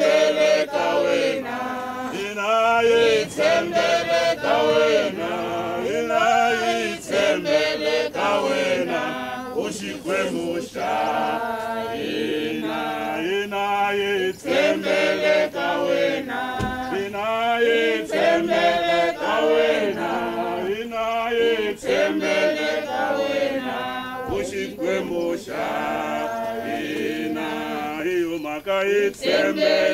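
A group of voices singing together unaccompanied, a steady chant-like hymn.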